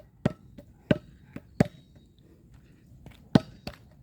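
Several short, sharp knocks at irregular intervals, about five in four seconds.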